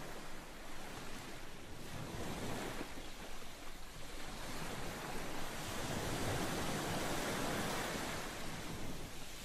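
Sea waves surging, an even rushing wash that swells louder through the middle and eases slightly near the end.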